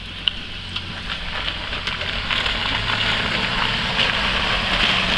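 Suzuki Jimny JB43's four-cylinder petrol engine running as the 4x4 drives through a wet, slushy puddle. The engine note is mixed with a crackling hiss from the tyres in water and slush, and there is a sharp click just after the start. The sound grows gradually louder as the vehicle approaches.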